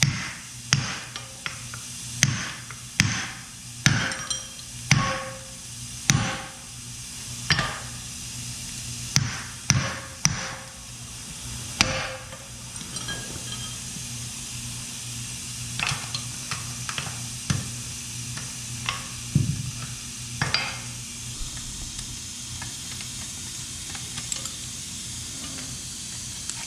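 Hammer blows ringing on steel, about one a second, as a stump grinder's cutter-wheel shaft and pillar-bearing assembly is knocked apart. After about twelve seconds they thin out into lighter clinks of tools and loose parts, with a couple more strikes later on. A steady low hum runs underneath.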